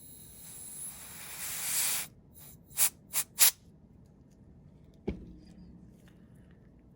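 Air sprayed at the phone's parts: a hiss that builds over about two seconds and stops, then three short puffs. A single light click follows about five seconds in.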